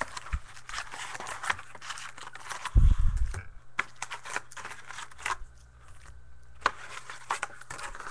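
Foil trading-card packs crinkling and a cardboard box rustling as the packs are lifted out by hand, with a loud low thump about three seconds in.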